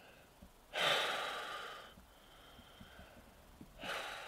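A person breathing out heavily twice: a long breath about a second in that fades away, and a shorter one near the end.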